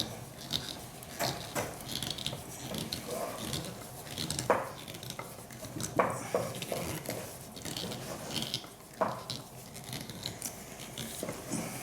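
A screw being turned by hand with a screwdriver into an aerated concrete block: irregular scraping and clicking, with a few sharper knocks about four and a half, six and nine seconds in.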